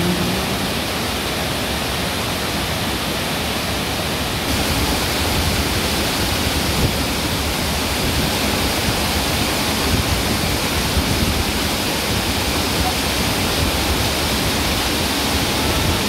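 Waterfall: a steady, even rush of falling water, getting a little louder and brighter about four seconds in.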